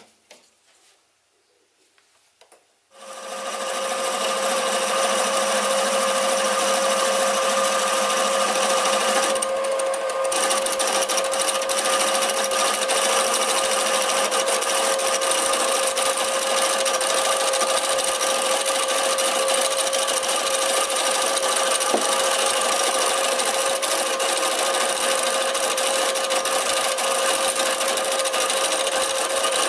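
Sieg SC3 mini lathe starting about three seconds in, then running steadily with a steady whine over a hiss while the tool takes a light cut, turning a taper on a steam-engine connecting rod held between centres.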